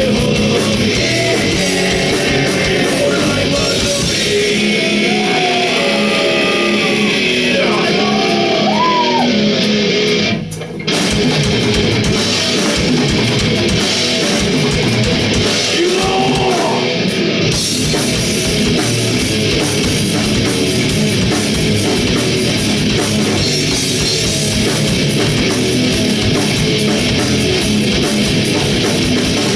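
Heavy metal band playing live and loud: distorted electric guitars and a drum kit, with singing. The band stops briefly about ten and a half seconds in, then comes straight back.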